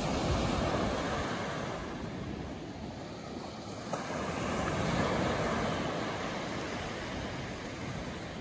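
Small surf breaking and washing up a sandy beach, the wash swelling near the start and again about halfway through.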